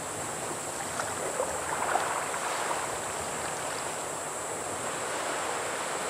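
Surf washing onto a coral-rubble beach: a steady wash of small waves that swells a little about two seconds in, with a few faint ticks.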